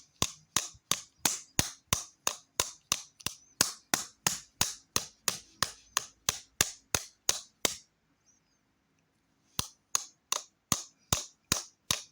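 An old TV remote control being whacked repeatedly against a hard surface: sharp hard-plastic smacks, about three a second, stopping for a moment about eight seconds in and then starting again. The remote is faulty and only barely works, and it is being knocked to get it going.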